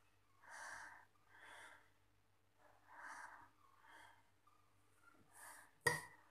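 Soft breaths, about five of them, roughly a second apart, with one short click near the end.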